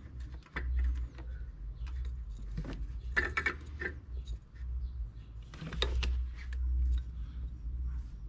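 Scattered clicks, clinks and knocks of hand tools and engine parts being handled, with two busier clusters about three and six seconds in, over a steady low rumble.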